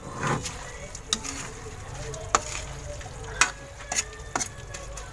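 A metal spoon scrapes and clanks against a steel wok as dried anchovies sautéed with tomato and shrimp paste are stirred, with about six sharp knocks at irregular intervals over a low, steady sizzle.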